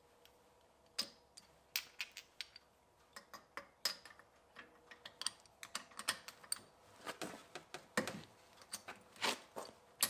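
Ratchet wrench and spark plug socket clicking and clinking in irregular taps as the spark plugs are unscrewed and pulled from a snowmobile engine's cylinder head.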